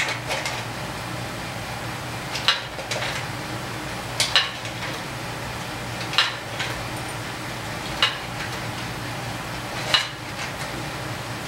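Hand-lever deep-throat sheet-metal shrinker-stretcher working a curved metal repair panel. Each pull of the lever brings the jaws down on the metal with a sharp clack, about once every two seconds, one of them a quick double. A steady low hum runs underneath.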